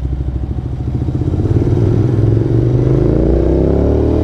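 Motorcycle engine running just after a cold start. About a second and a half in it gets louder and its pitch rises, then levels off and eases slightly near the end.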